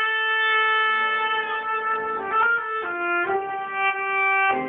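Oboe playing a slow solo melody of held notes, moving to a new pitch every half second to a second.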